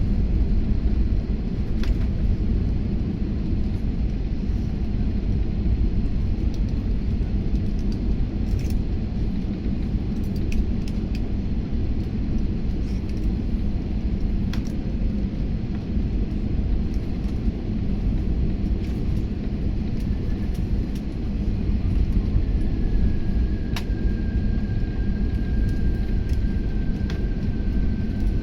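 Steady low rumble of an airliner's engines and airflow heard from inside the passenger cabin, with a few faint clicks and, in the last few seconds, a faint high tone slowly falling in pitch.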